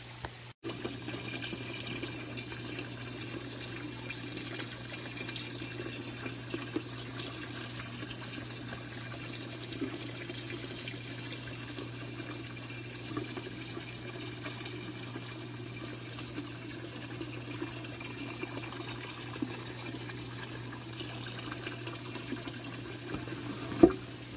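Water from the pond filter's return pipe pouring in a steady stream into the pond and splashing on the surface, over a steady low hum.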